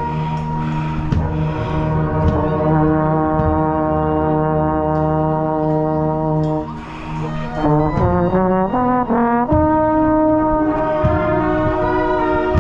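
Marching band brass playing, with a trombone right at the microphone: long held chords, then after a short dip in loudness a quick run of moving notes about eight to nine and a half seconds in, then held chords again.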